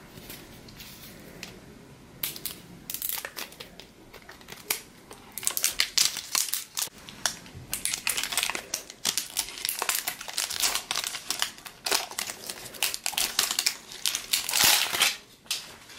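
Wrapping of an LOL Surprise Confetti Pop ball being crinkled and peeled open by hand: irregular crinkling and crackling that starts about two seconds in and is loudest near the end.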